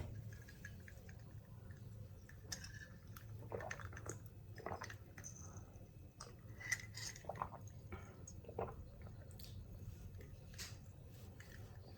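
Faint mouth sounds of someone sipping and tasting coffee: scattered small smacks and clicks over a low steady hum.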